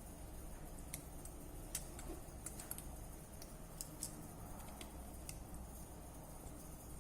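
Faint, irregular light clicks and ticks, about a dozen, from small hard parts of a smartphone being handled, over a low steady hum.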